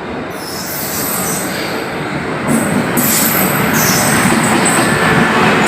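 Passenger train coaches rolling on the track with a dense rumble and thin, high wheel squeals, getting louder about two and a half seconds in.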